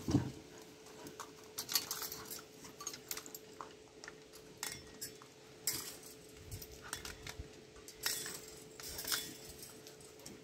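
Metal kitchen utensils and chains hanging from a puppy play frame clinking and jangling irregularly as the dogs bump into them, over a faint steady hum.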